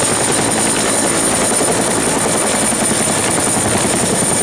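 Helicopter sound effect: steady rotor and engine noise with a thin, high steady whine on top.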